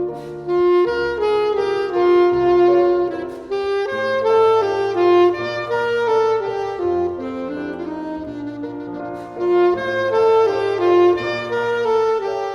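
Classical music: a saxophone playing a slow, smooth melody of held notes, with piano accompaniment.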